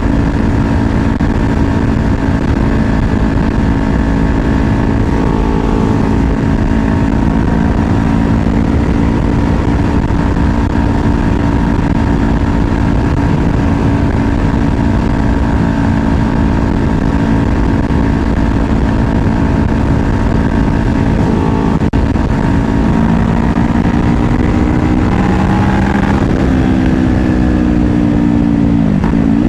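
Kawasaki Ninja 500's parallel-twin engine running at a steady cruising note over wind rush on the helmet mic. A few seconds from the end the engine note rises, then drops sharply at a gear change and climbs again.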